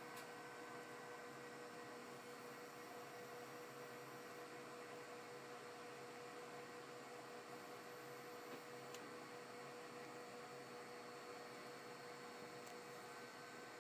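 Faint steady electrical hum from a powered-on 1996 Apple Power Macintosh 7600, with one clear steady tone over a low hiss and a couple of tiny ticks.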